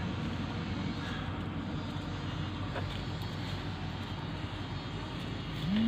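A steady low engine-like drone under a noisy hiss. Near the end a low tone rises and holds as music begins.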